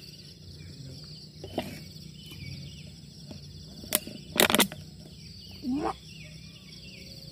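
Steady high insect chorus, like crickets, with small bird chirps repeating through it. A few loud, sharp rustling knocks come about four and a half seconds in, and a short rising sound follows just before six seconds.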